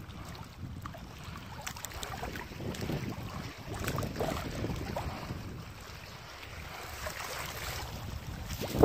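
Wind buffeting the microphone: a steady low rumble with a few faint clicks, and one loud bump right at the end.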